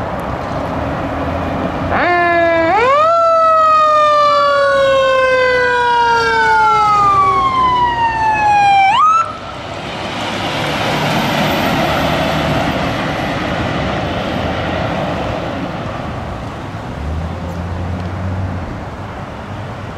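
A fire engine's siren sounds a wail. It comes in about two seconds in with a quick rise, then falls slowly, with a second siren tone rising and falling over it, and cuts off suddenly at about nine seconds. After that come the truck engine and road noise of a fire water tender driving past.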